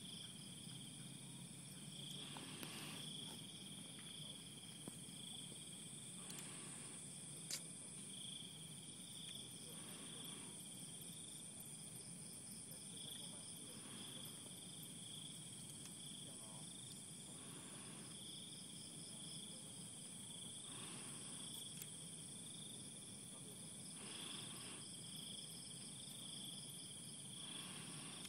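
Night chorus of crickets: a steady high-pitched trill with a lower chirp pulsing over it. Faint soft rustles come every few seconds.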